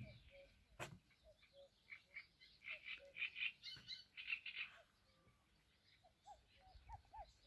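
Faint frog croaking and bird song: a string of short low notes, a burst of rapid high chirps in the middle, and a few rising-and-falling calls near the end. A single click sounds about a second in.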